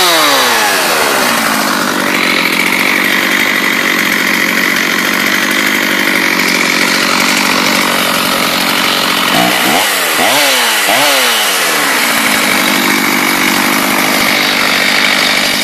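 Two-stroke gas chainsaw just pull-started from cold: its revs fall back at the start and it runs steadily at idle, with three quick throttle blips about ten seconds in before settling back to idle.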